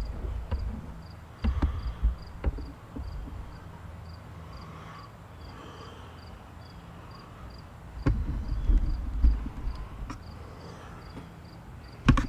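Pieces of firewood being handled and set down for a fire lay, with knocks and rustling in several short clusters. Under them an insect keeps up a faint, even chirp about two to three times a second.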